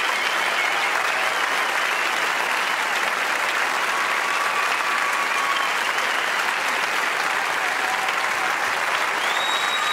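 A large hall audience applauding steadily, with a few whistles cutting through the clapping.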